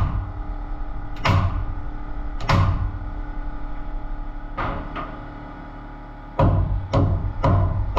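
Pneumatic nail gun firing three single shots into timber framing, each a sharp crack, spaced a second or two apart. Background music with a steady beat comes in about two-thirds of the way through.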